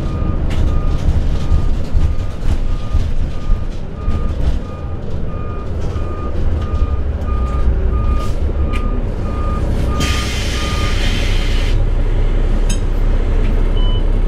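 2000 Neoplan AN460A bus with a Cummins ISM diesel engine running low, with an electronic warning beep repeating just under twice a second. About ten seconds in, a burst of compressed-air hiss lasts nearly two seconds and the beeping stops. The engine then runs on steadily and a little louder.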